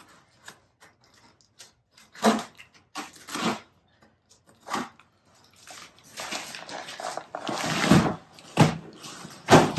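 Large cardboard shipping carton handled on a concrete floor: a few scattered knocks and scrapes, then a longer stretch of scraping with heavy thumps near the end as the box is tipped over and laid flat.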